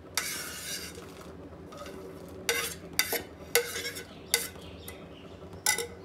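Steel knife blade scraping and tapping on a ceramic plate, pushing chopped almonds and cashews off it: a scrape near the start, then a run of sharp clinks.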